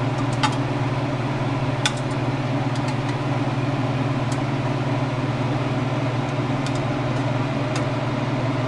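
A steady low mechanical hum of a kitchen appliance, with a few light clicks of metal tongs against a glass baking dish as the pieces of baked chicken are turned over.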